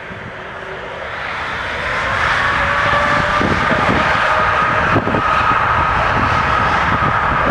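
Aircraft engines growing louder over the first two seconds, then running loud and steady with a whining tone over the noise.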